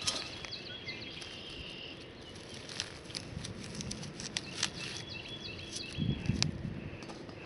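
Dry straw and old asparagus-stalk mulch crackling and rustling as hands push through it, with scattered sharp clicks and a few duller handling thumps. A bird chirps faintly in the background.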